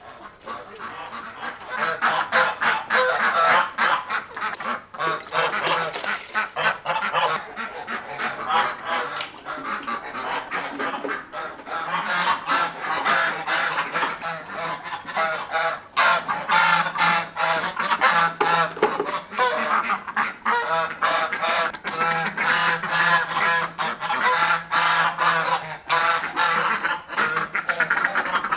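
A flock of domestic geese honking and cackling, many calls overlapping in a continuous din that swells a second or two in.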